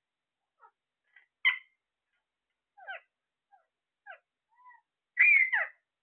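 Caged Alexandrine parakeets giving short squawks and chirps every second or so. The loudest is a sharp call about a second and a half in and a longer, wavering call near the end.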